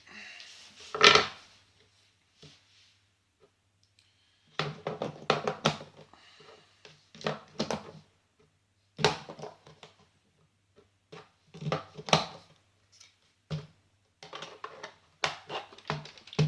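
AA batteries being fitted into the plastic battery compartment of a Syma X8HG drone's remote controller: several bursts of clicking and clattering with short pauses between them, the loudest knock about a second in.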